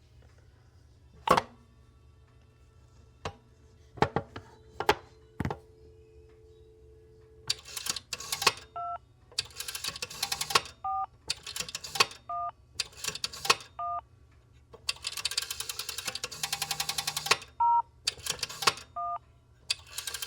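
Rotary telephone lifted off the hook with a few sharp clicks, then a steady dial tone that cuts off when dialling begins about seven seconds in. The rotary dial is wound and whirs back with rapid clicking for one digit after another, each digit followed by a short touch-tone beep as the pulses are converted to tone dialling for the VOIP line.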